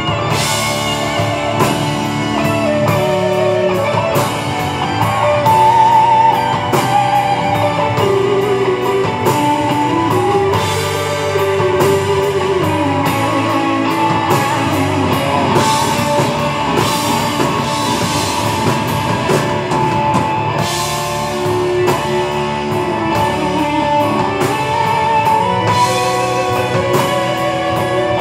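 Rock band playing live in an instrumental passage: electric guitars and drum kit, with a wavering melody line on top.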